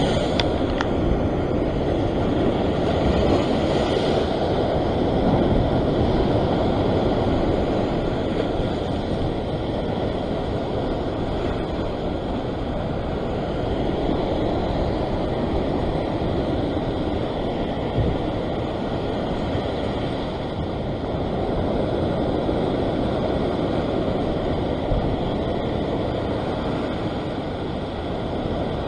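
Ocean surf breaking and washing over a rock ledge, with wind rumbling on the microphone: a steady wash of noise with no distinct events.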